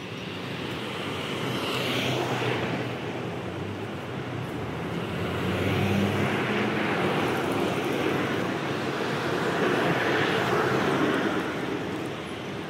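Street traffic: motor vehicles driving past one after another, the noise swelling and fading about three times.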